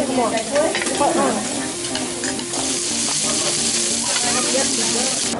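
Abalone and shellfish sizzling on a round griddle over a portable gas burner. The hiss gets much louder about two and a half seconds in.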